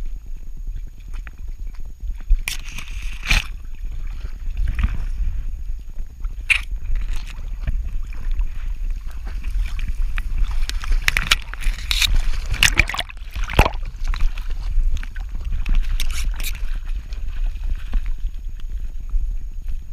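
Handling noise on a GoPro strapped to a walking dog's back: a steady low rumble as her movement jostles the camera, with scratchy rustling and clicks in bursts where grass and brush scrape against it, thickest about ten to fourteen seconds in.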